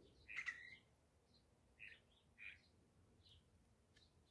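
Faint bird chirps: a few short, high calls scattered through, the loudest about half a second in.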